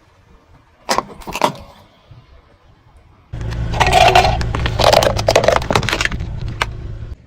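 Car tyre rolling over and crushing brittle objects: a couple of sharp cracks about a second in, then from about three seconds a steady low rumble under a run of crackling and snapping, which cuts off suddenly near the end.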